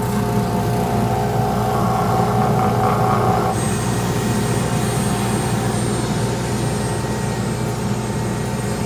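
Electric bench disc sander running with a steady hum while the edges of a kydex holster shell are sanded against the disc. The sanding stops about three and a half seconds in and the motor keeps running.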